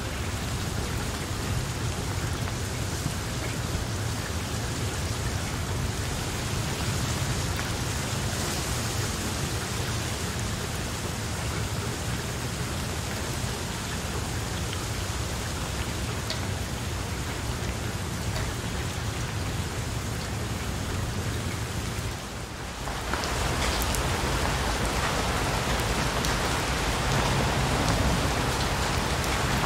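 Heavy rain falling on broad papaya leaves, a steady hiss of rain. It drops away briefly about two-thirds of the way through, then comes back louder.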